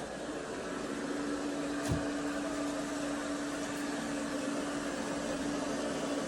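eufy RoboVac 11S MAX robot vacuum running with a steady motor hum, a little louder from about a second in. A single short knock about two seconds in.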